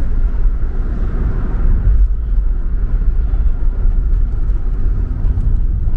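Car on the move, a steady low rumble of engine and road noise.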